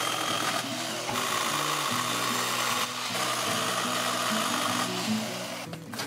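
Powered pole saw cutting into a tree trunk overhead, its chain running steadily through the wood with a brief let-up about three seconds in, stopping just before the end. Background music plays underneath.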